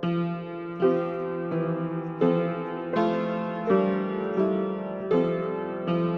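Piano playing a slow, steady run of chords, with a new chord struck about every three-quarters of a second.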